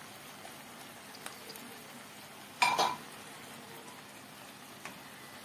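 Pasta frying quietly in a pan while a plastic spoon stirs it, with light scrapes and taps. One brief louder scrape a little past halfway.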